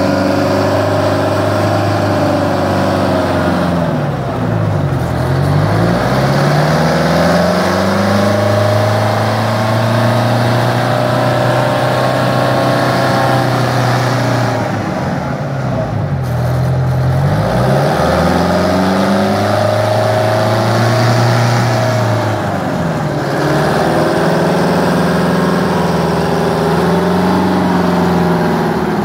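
Michigan 175-A wheel loader's diesel engine running loud and steady while the machine drives and works its bucket, its engine speed dropping and climbing back three times.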